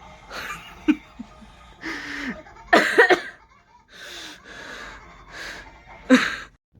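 Breathy vocal sounds: a string of short gasps, pants and laughing bursts, with a few brief squeaky voiced sounds in between.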